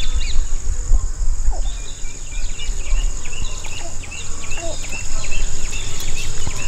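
Insects droning in a steady high buzz, with many short bird chirps scattered over it, under a low, uneven rumble.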